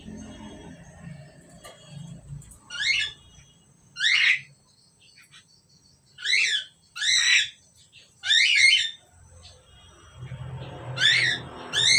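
Asian pied starling (jalak suren) giving short, harsh calls, about seven of them at irregular intervals, some in quick pairs.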